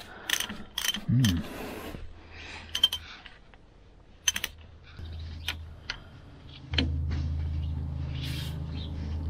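Steel spanner clicking and clinking on the nuts around the back of an old road grader's differential as the loose nuts are checked and tightened. A low steady hum comes in near the end.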